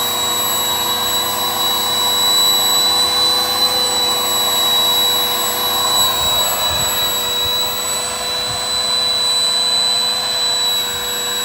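Electric air pump running steadily with a high whine, blowing air into a large inflatable camel float.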